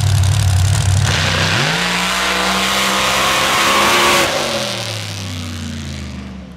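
Dirt drag car running with its exhaust cutouts open: a loud rumble at the starting line, then a full-throttle launch about a second in, the engine revving high for about three seconds before falling in pitch and fading as the car runs away down the strip.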